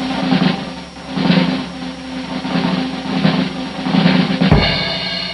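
Drum intro sound effect: a rolling drum-kit pattern that swells roughly once a second, ending about four and a half seconds in on a deep bass drum hit that rings on.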